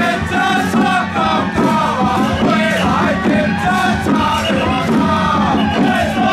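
Loud temple-procession music with many wavering, gliding melodic lines over steady percussion strikes, and people yelling and chanting along.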